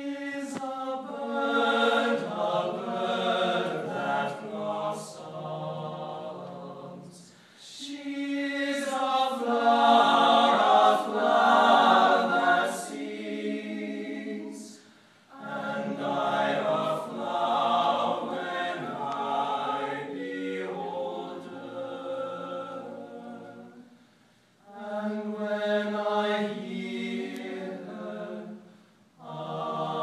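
Unaccompanied men's voices singing together in harmony, a cappella. The singing comes in long phrases separated by brief pauses every several seconds.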